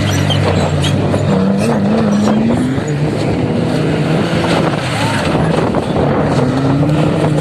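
Off-road motorcycle engine running under way, its pitch rising and falling with the throttle, over a steady rushing noise.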